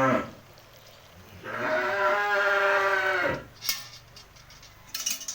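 A cow mooing: one long, steady call of about two seconds in the middle, after the end of an earlier call at the start, then a few short clicks near the end.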